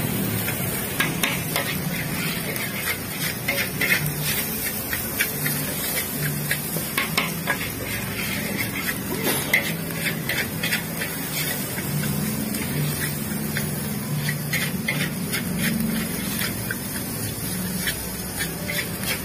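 Metal spatula scraping and knocking against a wok in quick, irregular strokes as fried rice is stir-fried, over the steady sizzle of the frying rice.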